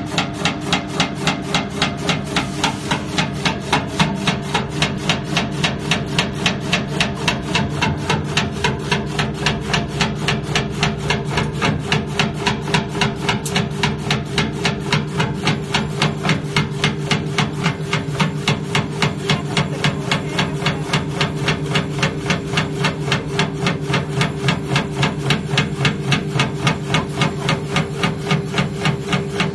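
Brunetti automatic meat slicer cutting a frozen block of meat: a steady motor hum under an even, rapid knock, about three a second, one for each slice taken off the block.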